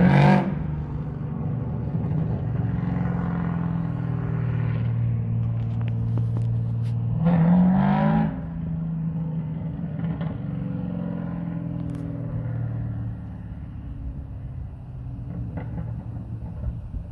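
LS3 6.2-litre V8 in a 2005 C6 Corvette running steadily, with a short throttle blip right at the start and another, rising in pitch for about a second, around seven and a half seconds in. The engine sound grows quieter about thirteen seconds in.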